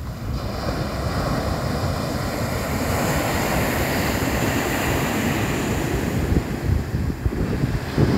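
Ocean surf breaking on a sandy beach, a wave's hissing wash swelling about half a second in and easing near the end, with wind buffeting the microphone.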